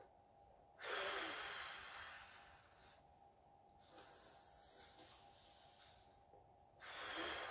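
A woman doing a deep-breathing exercise, drawing long breaths in through the nose and out through the mouth. Two loud exhalations come about a second in and near the end, each starting suddenly and fading over about two seconds, with a fainter breath between them.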